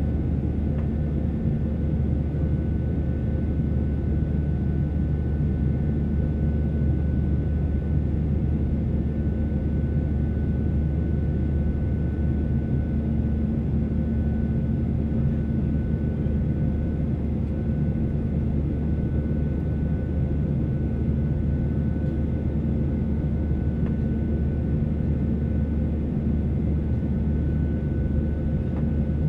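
Steady cabin drone of a Boeing 737-800 in flight, heard from inside near the wing: its CFM56-7B engines and the airflow, with a thin steady whine held over the low roar.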